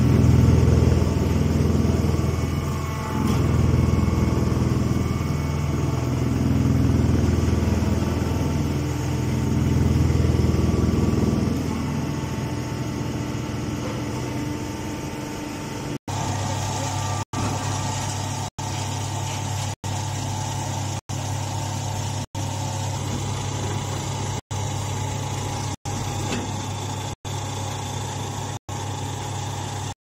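Hydraulic straw baler running: a steady low machine hum. For the first half it swells and eases every few seconds. After that it holds steadier, broken by brief silent dropouts about every second and a quarter.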